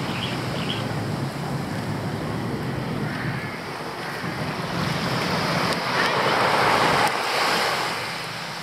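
Small waves washing onto a sandy beach, with wind buffeting the microphone; the wash swells about six to seven seconds in and eases off near the end.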